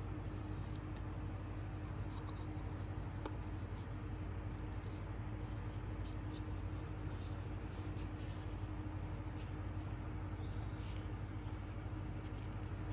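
Small plastic tiers of a Kaja Play Bento stackable blush compact being twisted and stacked by hand, giving light clicks and scratchy scrapes, most of them in the middle and later part, over a steady low hum.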